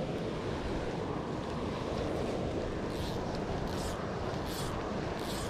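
Steady rush of flowing river water, an even, unbroken hiss.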